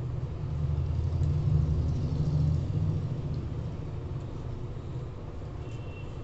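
A low rumble that swells over the first three seconds and then eases off, with a brief faint high tone near the end.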